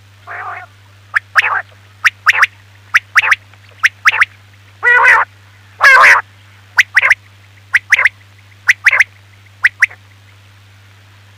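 Quail calling: short, sharp notes mostly in pairs, about one pair a second, with a buzzy note near the start and two longer, harsher notes in the middle. A faint steady low hum lies underneath.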